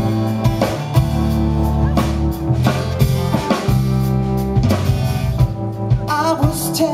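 Live pop-rock band playing: strummed acoustic guitar, keyboard, bass and a drum kit with bass drum and snare keeping a steady beat. A singing voice comes in near the end.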